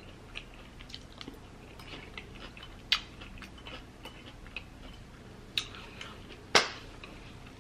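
Close-miked chewing of a forkful of salad, with small crunches and mouth clicks, and a metal fork picking at salad on the plate. A few sharper clicks stand out, the loudest about a second before the end.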